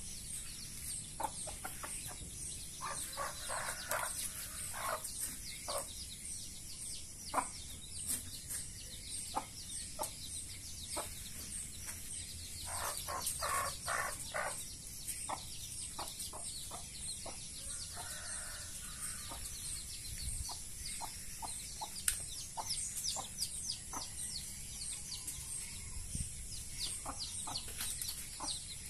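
Domestic hen clucking in short runs, a few seconds in and again about halfway through, with her chicks peeping around her.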